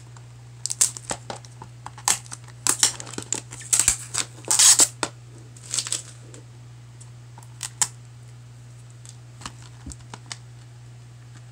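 Fingernails picking at and peeling a security sticker off the edge of a plastic Blu-ray case: scattered clicks and scratches, with several short scratchy peeling sounds in the first half, the loudest about five seconds in, then sparser clicks.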